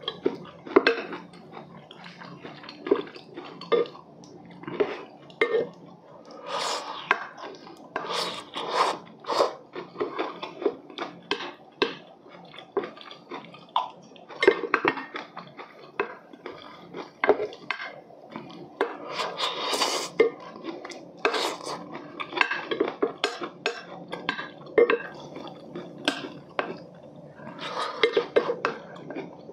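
Spoon scraping and clinking against a white ceramic plate in many short, irregular strokes, scooping up the last of the corn mayo.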